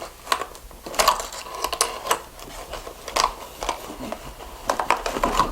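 Homemade cardboard shoebox vending machine being worked by its handle, which twists a plastic water bottle inside: irregular clicking and knocking of cardboard and plastic, a few clicks a second in uneven clusters.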